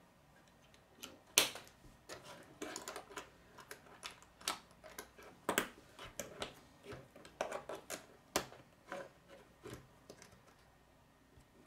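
K'nex plastic rods and connectors clicking and snapping together and knocking on a wooden tabletop: irregular sharp clicks, the loudest about a second and a half in.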